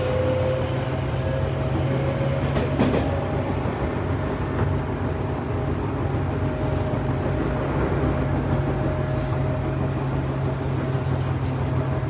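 Tobu 9000-series electric train running, heard from inside the car: steady rumble with a held whine from its traction motors and drive. One sharp knock about three seconds in.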